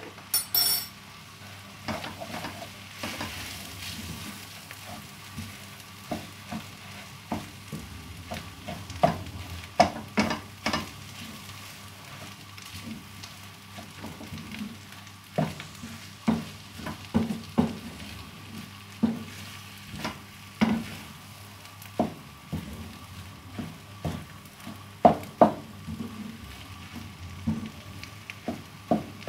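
Wooden spatula stirring food in a frying pan, with irregular knocks and scrapes against the pan, over a light sizzle of frying.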